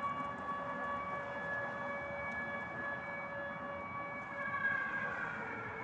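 Civil-defence air raid siren wailing, a steady held tone that thins out toward the end.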